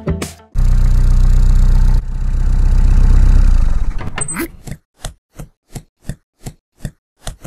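Cartoon sound effects for an animated delivery van: a loud engine starts about half a second in, runs, swells and fades out after about four seconds. A brief rising sweep follows, then a run of evenly spaced footsteps, a little under three a second.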